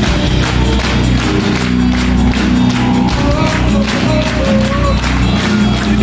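Rock band playing live, loud: sustained bass and guitar notes over a steady drum beat, with a wavering melody line coming in about halfway through.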